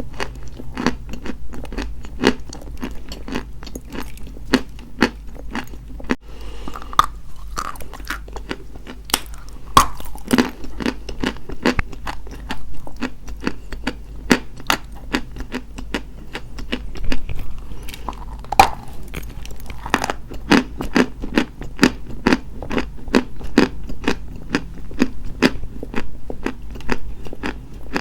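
Dry white chalk being bitten and chewed close to the microphone: a dense run of sharp crunches that thins out briefly about six seconds in.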